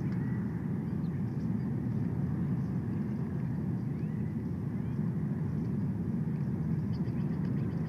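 Steady low outdoor rumble from the nest-camera microphone, with a few faint, short, rising bird chirps.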